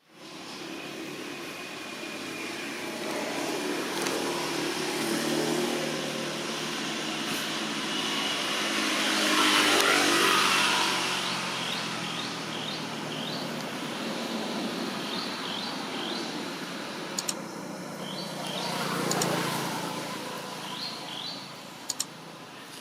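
Road vehicles passing by: a steady traffic noise that swells to its loudest as one vehicle passes close about halfway through, then a second, smaller pass near the end.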